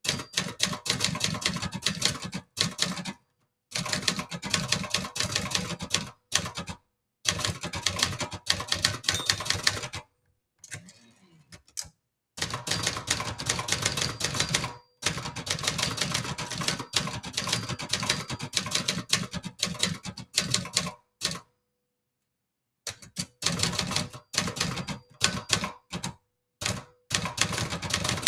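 Brother Charger 11 manual portable typewriter being typed on: rapid runs of typebar strikes in bursts, separated by short pauses and one longer pause a little past the middle.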